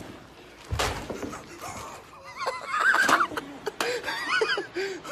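A thump about a second in, then a young man's high-pitched, wavering cry that rises and falls in pitch for about two and a half seconds.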